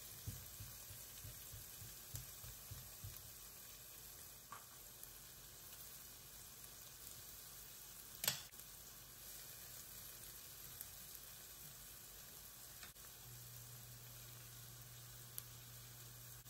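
Sliced onion and bell pepper sizzling faintly in oil in a nonstick frying pan, with soft knocks from a spatula stirring them in the first few seconds. A single sharp click comes about eight seconds in, and a low hum comes in near the end.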